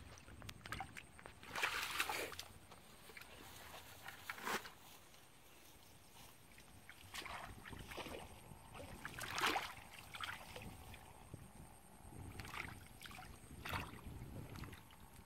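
Shallow muddy water splashing and sloshing as a person wades and gropes through it by hand, in separate bursts about half a dozen times, with quieter sloshing between.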